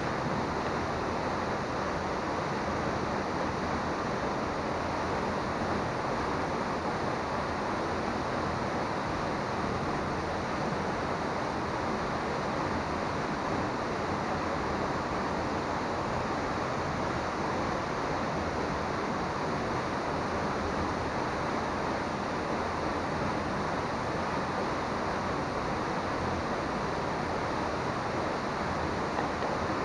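A waterfall's steady, unbroken rush of falling water.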